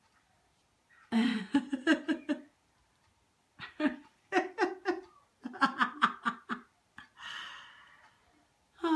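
A person laughing in several bursts of quick pulsed laughs, then a long breathy exhale near the end.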